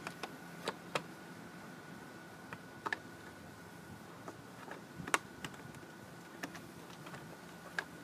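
Scattered plastic clicks and taps as the air filter cover and filter on a Briggs & Stratton lawn mower engine are handled and swapped, the loudest click about five seconds in.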